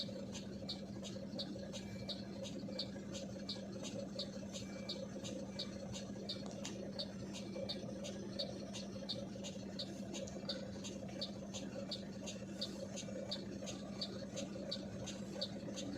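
A truck's diesel engine idles as a steady low hum. Over it comes a regular high-pitched chirping, about two or three chirps a second.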